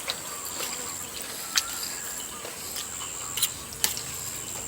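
Wet mouth sounds of eating: a few sharp, sticky clicks of chewing and slurping noodles in curry, spaced apart. A thin, steady high-pitched whine runs underneath.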